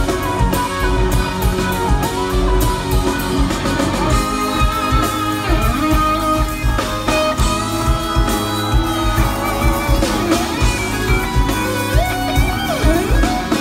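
Live progressive rock band playing at full volume: electric guitars, keyboards and a drum kit, with sustained lead notes and some bent notes near the end.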